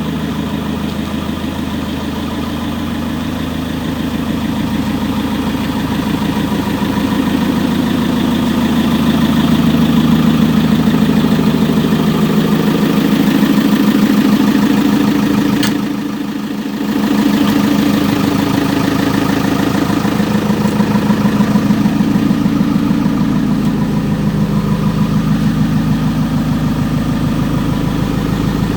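JCB 3CX backhoe loader's four-cylinder diesel engine running steadily, its level swelling a little over the first ten seconds and dipping briefly about sixteen seconds in, with a faint click just before the dip.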